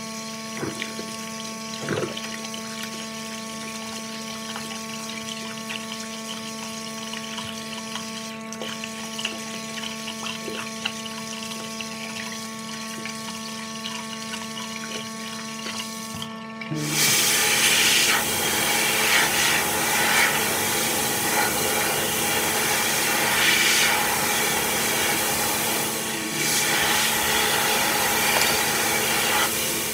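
Hands being washed at a washbasin: a steady hum with soft rubbing sounds, then a little past halfway tap water running loudly and splashing into the basin.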